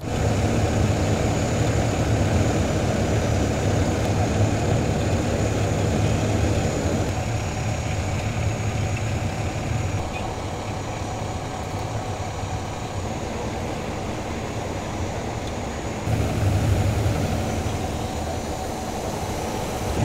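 Vehicle engines idling and running: a steady low rumble that changes abruptly about ten and sixteen seconds in, louder from the second change.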